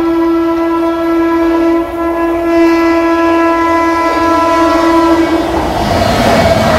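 Indian Railways electric locomotive's horn sounding one long steady blast, with a brief dip about two seconds in, stopping after about five and a half seconds. Then the noise and wheel clatter of the train passing close by.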